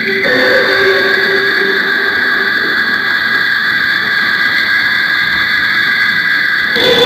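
Synthesized reptilian-alien voice sound effect: a loud, steady drone of several high held tones that shift in pitch just after the start and again near the end.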